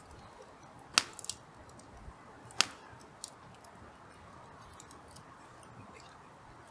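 Hardwood campfire crackling, with two sharp loud pops, about a second in and again near the middle, among scattered fainter snaps.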